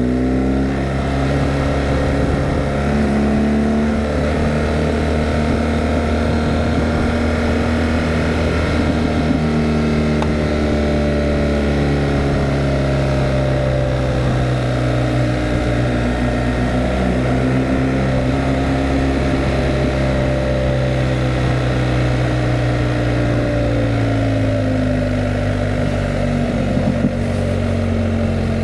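Motorcycle engine running under way, its revs climbing at the start, holding fairly steady, then falling off near the end.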